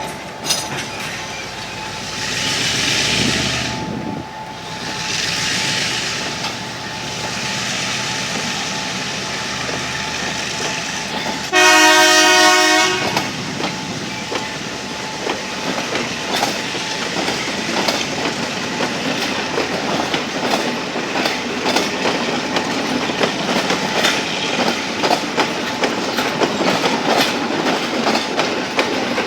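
Express train hauled by two Sri Lankan M2-class diesel locomotives running through, with one loud multi-tone horn blast of about a second and a half midway. Afterwards the wheels clatter steadily over the rail joints as the carriages pass.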